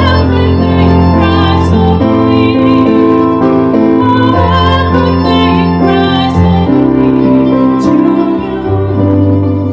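A woman singing a slow worship song, accompanied by a mandolin, over held low notes that change every second or two.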